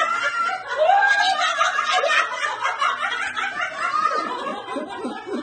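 A woman laughing and giggling with delight.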